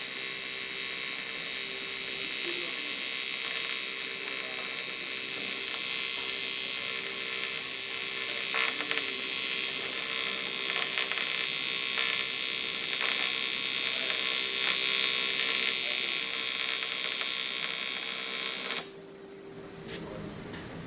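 TIG welding arc from an Eastwood TIG 200 welder, a steady buzzing hiss that cuts off abruptly near the end as the arc is broken.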